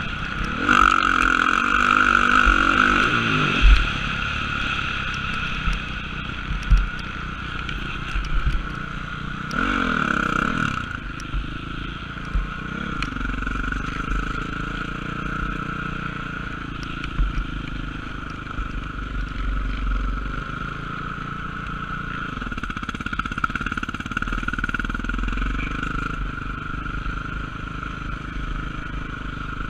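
Motocross dirt bike engine heard from the rider's helmet camera, revving up hard at the start and again about ten seconds in, then running at lower, steadier revs. A few sharp knocks come through along the way.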